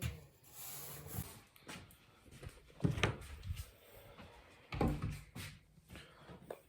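Several knocks and bumps, the loudest about three seconds in and again around five seconds in.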